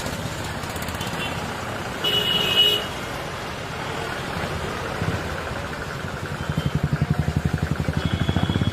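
Vehicle and traffic noise with a short horn toot about two seconds in. Near the end a low engine sound pulses quickly and grows louder.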